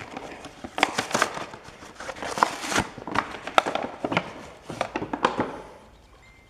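Irregular crinkling, rustling and clicks of a new Briggs & Stratton air filter being handled, stopping about five and a half seconds in.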